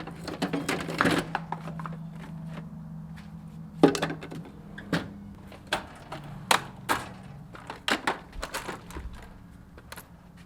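Irregular clicks, knocks and clatter of parts and tools being handled in a workshop, with one loud knock about four seconds in, over a steady low hum.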